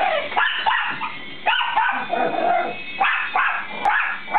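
Dog barking repeatedly in high, yappy barks, about two a second, worked up by a small RC toy helicopter flying overhead.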